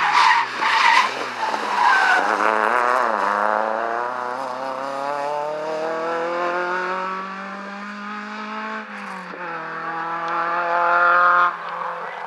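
Small hatchback rally car with a brief tyre squeal as it turns through the bend, then its engine revving hard as it accelerates away. It shifts up once about nine seconds in, pulls up through the next gear and fades near the end.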